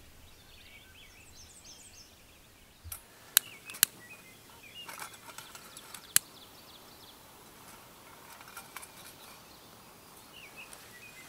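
Quiet outdoor ambience with faint bird chirps. A few sharp clicks or knocks come about three to four seconds in and once more about six seconds in.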